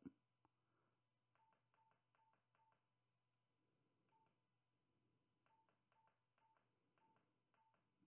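Faint short key beeps, each with a click, from the keypad of a BK Technologies BKR 5000 handheld two-way radio as letters are typed in; the beeps all have the same pitch and come in short runs with pauses between them.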